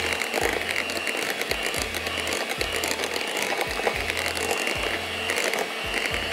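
Electric hand mixer running steadily, its twin beaters whisking a thick cream-and-cream-cheese mixture in a glass bowl.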